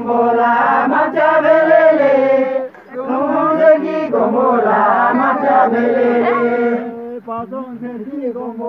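A mixed group of voices singing a Tamang mhane dance song together in long, held phrases. There is a short break about three seconds in, and the singing gets softer near the end.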